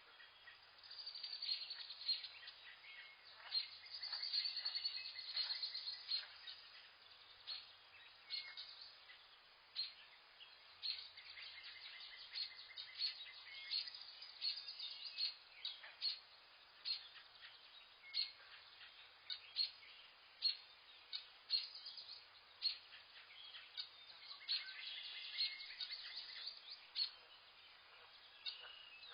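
Birds chirping: a steady stream of short, sharp chirps and quick calls, some overlapping, over a faint hiss.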